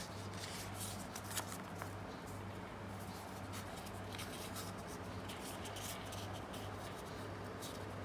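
Origami paper rustling and crinkling faintly as hands fold and crease it, in short scattered crackles with one sharper click about a second and a half in. A steady low hum runs underneath.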